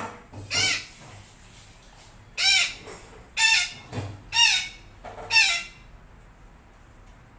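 Parakeet (betet) giving a series of five harsh, squawking calls, each short and about a second apart.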